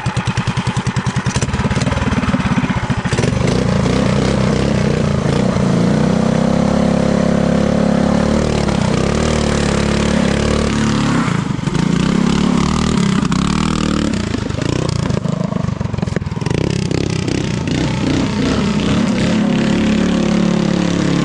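Mini trike's small gas engine ticking over slowly, then revving up about three seconds in and held at high revs, falling and climbing again a few times under changing throttle.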